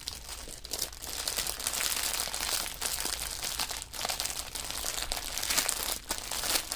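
Small plastic bags of diamond-painting drills crinkling and rustling as they are folded and pushed into place, with many small crackles throughout.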